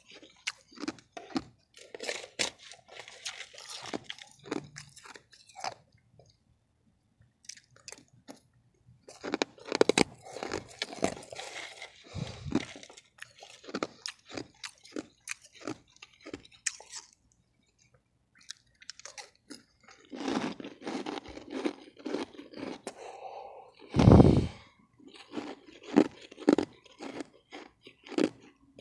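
Refrozen powdery ice crunched and chewed close to the microphone, in runs of crisp crunches with short pauses between mouthfuls. A loud thump comes about three-quarters of the way through.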